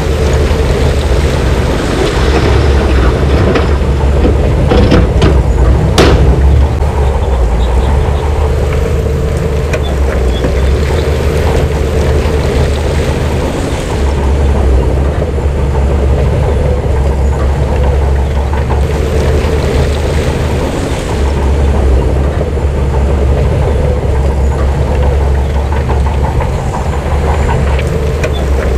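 Heavy diesel construction machinery running steadily, with a few sharp clanks about four to six seconds in.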